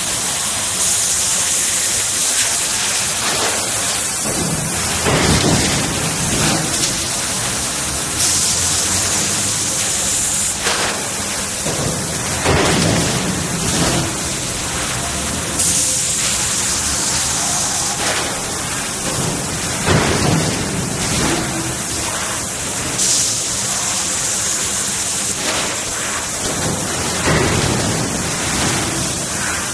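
Servo hydraulic press running in a noisy workshop: a loud, steady rush of machine noise, with a high hiss coming back about every seven seconds.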